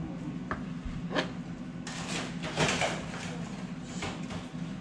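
Kitchen-knife cuts through raw chicken wings on a plastic cutting board, with a few sharp knocks and then a couple of seconds of clattering and rustling from food and dishes being handled, over a steady low hum.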